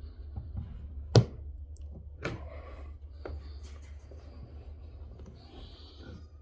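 A few sharp clicks and knocks, the loudest about a second in, over a low steady hum.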